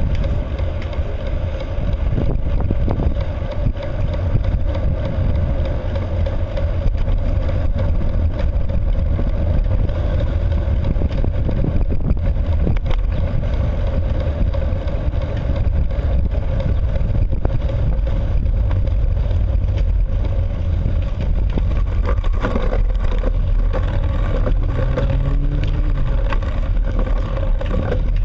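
A motor droning steadily with a low rumble while moving along the road, and a brief rising whine near the end.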